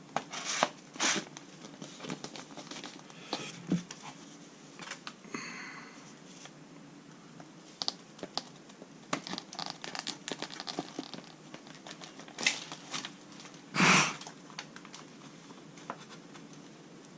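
Hand-handling noise of EPP foam model-aircraft parts and plastic packaging: scattered scrapes, taps and crinkles as the foam fuselage and wing are turned and fitted together, with a louder short rustling thump about 14 seconds in.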